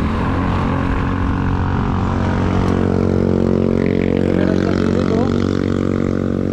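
A motor vehicle's engine running with a steady drone close by in traffic, getting a little louder about halfway through, over wind and road noise on the microphone.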